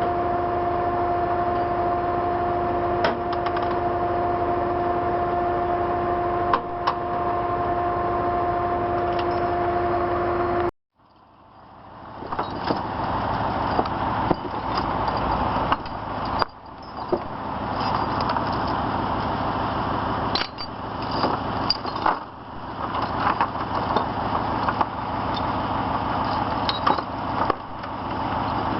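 A steady mechanical hum with two even tones and occasional clicks, which cuts off suddenly about eleven seconds in. It is followed by uneven vehicle engine and road noise with scattered knocks.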